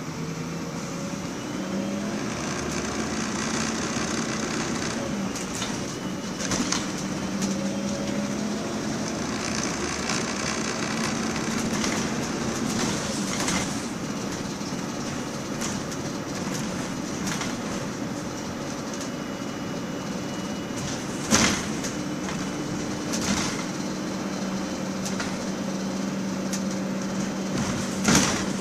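MAN 18.240 Enviro 300 single-deck bus heard from inside while under way. Its diesel engine and drivetrain run with a steady low hum, rising in pitch as it pulls away in the first few seconds. Several sharp knocks and rattles from the bus body come through, the loudest about 21 seconds in and near the end.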